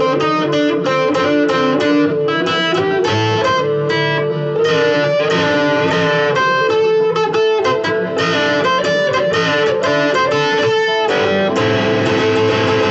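Electric guitar played through an amplifier: quick runs of picked single notes over a held note. About eleven seconds in it changes to denser, washier playing.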